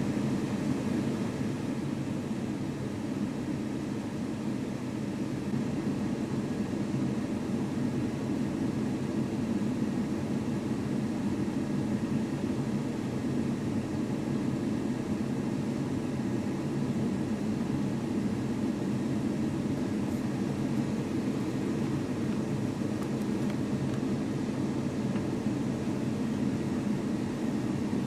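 Fast floodwater rushing steadily over a flooded low-water creek crossing, making a constant low rushing noise with no breaks.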